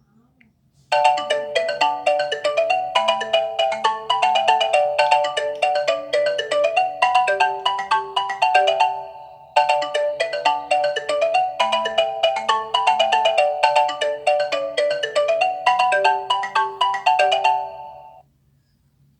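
Classic LG ringtone played on an LG G8 ThinQ: a fast melody of short notes over a slower bass line. The phrase plays for about eight seconds, stops, and loops once more after a brief pause.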